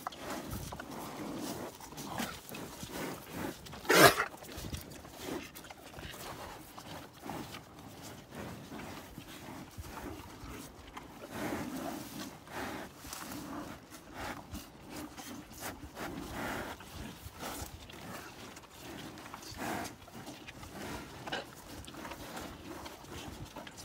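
Black cattle eating from a plastic feed pan: irregular snuffling, breathing and chewing sounds as they push their noses into the feed. One sharp, loud sound about four seconds in.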